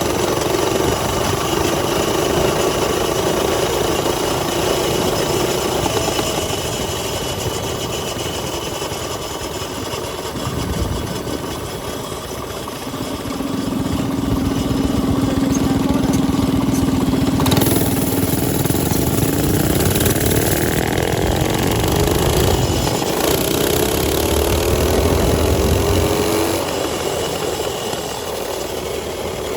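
Mini bike engines running, holding a steady idle for the first part, then revving in rising sweeps of pitch through the second half.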